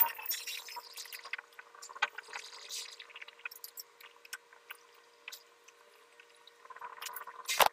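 Scattered light clicks, taps and rubbing from hand work on plastic water pipe and fittings, with a sharper knock near the start, another about two seconds in, and one more near the end.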